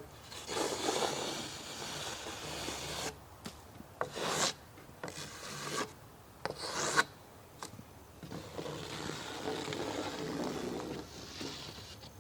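Rubbing and scraping on freshly milled white oak: two long, rasping passes of about three seconds each, near the start and in the second half, with a few short scrapes and a sharp knock between them.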